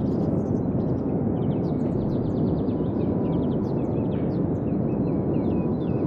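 Steady surf of small waves washing up a sandy beach, with many birds chirping in short high notes over it, the chirps coming thicker from about two seconds in.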